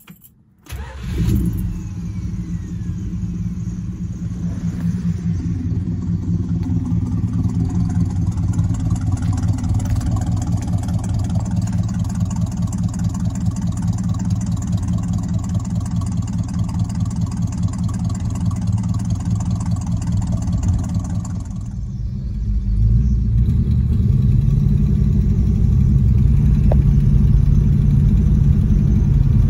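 1968 Plymouth Satellite Sport Wagon's engine starting about a second in with a brief rev, then running at a steady idle. About 22 seconds in the sound changes to a louder, deeper engine drone heard from inside the cabin as the wagon drives.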